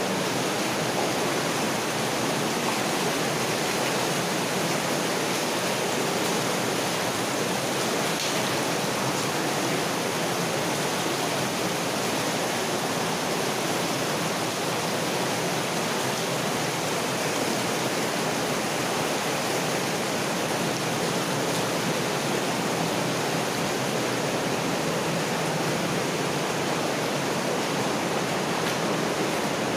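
Water rushing steadily through a mine drainage culvert, a constant even rush with no breaks.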